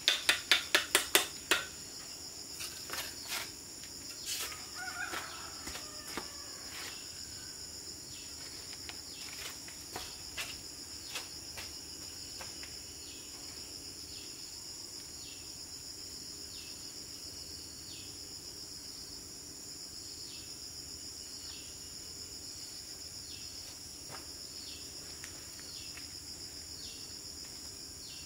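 A quick run of sharp taps, about five a second, as a trowel beds a brick into cement mortar, then scattered, fainter knocks and clicks as bricks are handled and set. A steady shrill drone of insects runs underneath.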